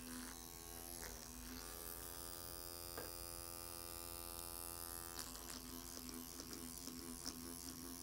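Electric microneedling pen's motor running with a faint, steady buzz.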